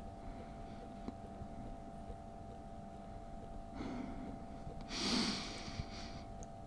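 A man breathing heavily: two loud, noisy breaths, the second and louder one about five seconds in, over a faint steady hum.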